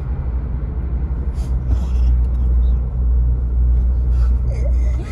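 Low, steady rumble of a car driving on a highway, heard from inside the cabin.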